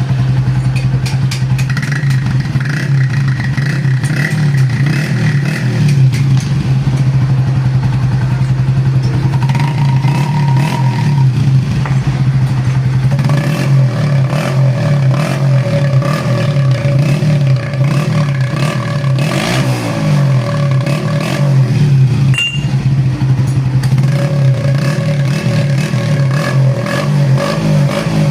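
Honda CG125's single-cylinder four-stroke engine running steadily through its exhaust silencer, with an even, low pulsing exhaust note.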